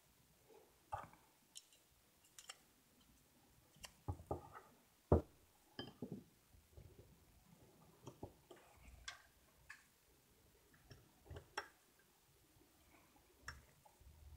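Small, sharp clicks and taps of Glock 43 slide parts being handled and fitted back into the slide during reassembly, scattered and irregular, with the loudest click about five seconds in.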